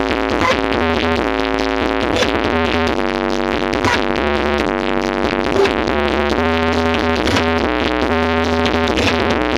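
Electronic music played loud through a big sound system: sustained synthesizer chords changing every second or so over a heavy bass line.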